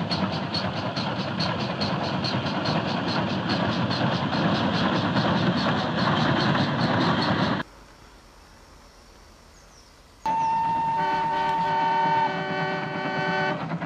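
Steam locomotive running at speed, its exhaust beating rapidly and evenly, about five beats a second, over a steady rumble; the sound cuts off abruptly about seven and a half seconds in. After a quieter gap a horn sounds: first one long steady note, then a fuller, many-toned blast near the end.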